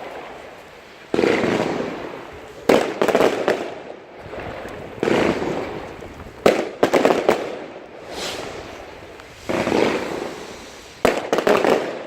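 New Year's fireworks: a run of loud bangs about one to two seconds apart, each trailing off in crackle and echo, with a sharp report about six and a half seconds in and two quick bangs near the end.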